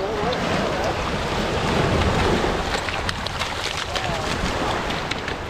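Small waves washing over a pebble beach, with wind on the microphone. From about three seconds in, a hooked pink salmon splashes and thrashes in the shallow water at the shore, giving a quick run of sharp splashes.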